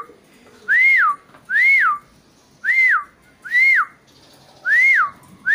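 A person whistling a string of short call notes, each rising and then falling in pitch, about once a second, to call racing pigeons into the loft.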